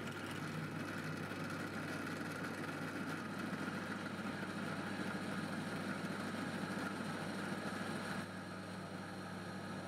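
Pillar drill (drill press) running steadily, its twist bit cutting a centre hole into metal bar stock with a continuous motor hum and whine. It turns a little quieter about eight seconds in.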